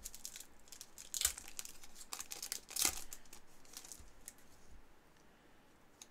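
1996 Pinnacle Racer's Choice trading cards being handled and pulled apart, a crinkling, tearing rustle. There are two louder crackles, about a second in and near three seconds, then quieter rustling.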